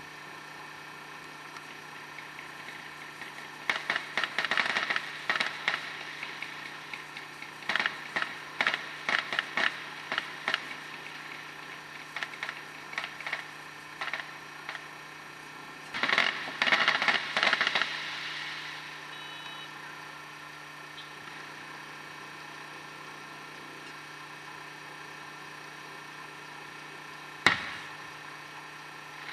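Fireworks crackling: four clusters of rapid snapping clicks, each a couple of seconds long, then one sharp crack near the end.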